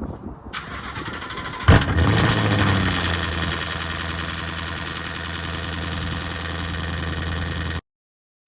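The 2018 Mustang GT's 5.0 V8 cold-starting with no mufflers, its exhaust dumped after the X-pipe: it fires about two seconds in with a sharp bang and flares. It then settles into a steady, loud fast idle. The sound cuts off suddenly near the end.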